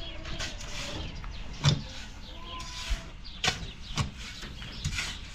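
A few sharp knocks at irregular intervals from hand building work, with the loudest about a third of the way in.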